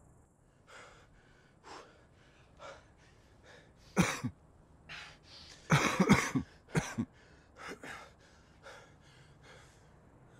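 A person coughing hard, in a single loud cough about four seconds in and a quick run of three or four about two seconds later, with short, heavy breaths roughly once a second before and after.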